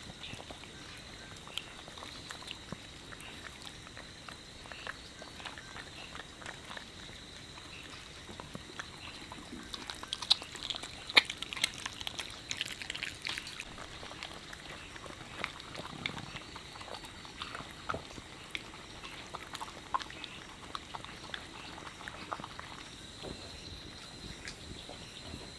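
A puppy eating rice off a plate: small wet chewing and licking clicks with occasional light knocks, busiest around the middle.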